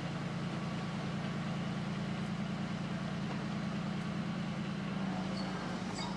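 Heavy diesel engine of a military armoured vehicle idling steadily, a low even drone whose pitch shifts slightly about five seconds in.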